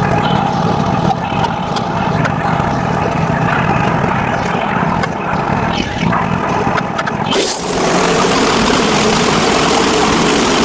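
Woodland Mills portable bandsaw mill running steadily, its gas engine driving the band blade through a log. About seven seconds in, a loud, even hiss comes in and holds.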